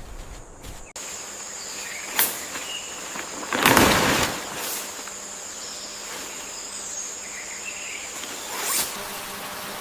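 Jungle insects trilling: a steady high-pitched buzz over a hiss of background noise. A few short louder noises break in, the loudest and longest about three and a half seconds in.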